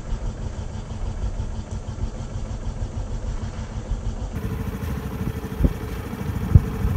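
Wind buffeting the microphone: a loud, uneven low rumble with no engine rhythm. A couple of dull thumps come near the end.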